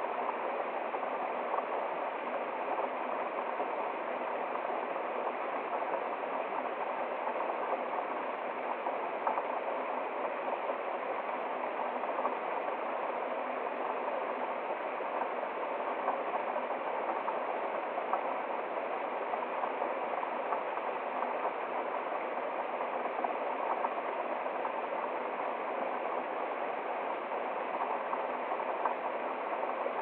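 Small woodland waterfall splashing down a rocky cascade into a shallow stream, a steady, unbroken rush of water.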